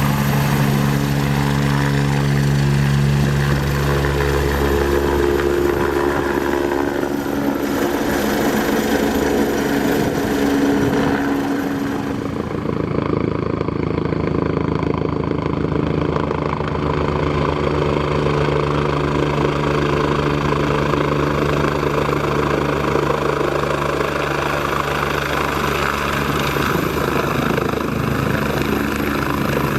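Radio-controlled scale-model Eurocopter EC 135 helicopter in flight, its motor and rotors running with a steady sound of several pitched tones. About twelve seconds in it dips briefly and the pitch changes.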